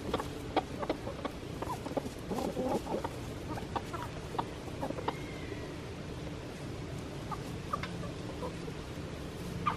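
A flock of chickens foraging and clucking, many short, scattered clucks, busier in the first half and sparser later.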